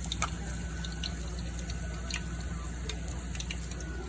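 Breaded chicken cordon bleu frying in hot oil: a steady sizzle with scattered crackling pops.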